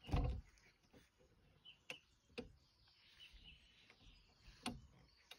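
A thump, then a few sharp clicks, from handling the frame of a folding sun lounger as a part is fitted on. Birds chirp faintly in the background.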